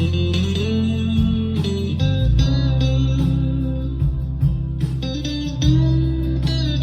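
Chapman ML1 electric guitar through an amp's clean channel, playing single-note lines with notes that bend in pitch, over a backing track with sustained bass notes.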